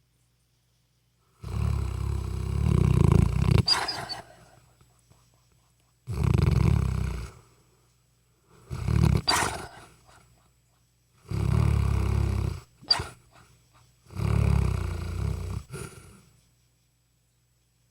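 Golden retriever snoring in its sleep: five loud, drawn-out snores a few seconds apart, with near silence between them.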